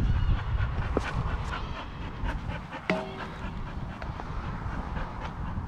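A dog panting, with a low rumble underneath and scattered faint ticks; one sharp click about three seconds in.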